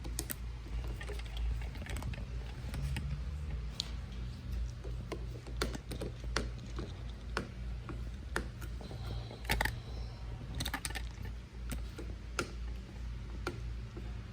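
Irregular small clicks and taps of plastic and metal parts being twisted and worked loose from a motorcycle handlebar by hand, over a steady low rumble.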